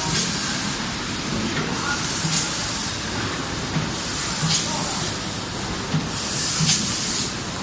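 Automatic pet-food pouch packaging machine running, with a steady mechanical noise and short hissing puffs and low knocks repeating at an even rhythm as it cycles.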